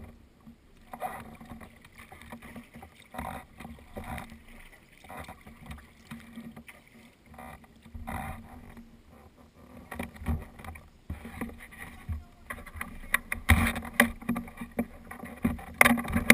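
Lake water splashing and lapping against a sea kayak's hull as it is paddled, in irregular splashes that grow louder and closer together near the end.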